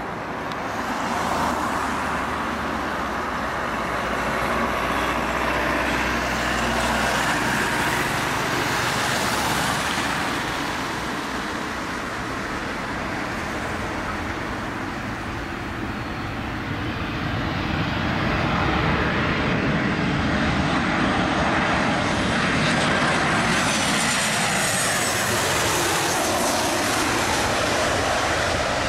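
Boeing 737-800's CFM56-7B turbofan engines on final approach: a steady rushing drone, joined near the end by a high engine whine that falls in pitch as the jet goes by.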